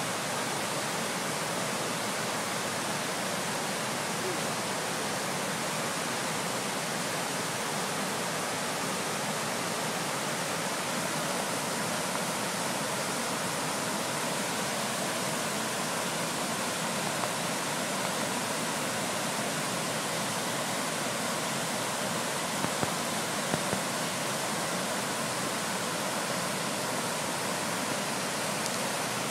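River water pouring steadily over a stepped weir: an even, unbroken rush of white water.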